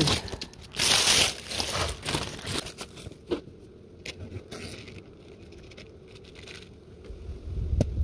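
Handling noise as the camera is set down among dry leaves, sticks and grass: rustling and crunching, loudest about a second in, then scattered clicks and rustles that die down after about five seconds.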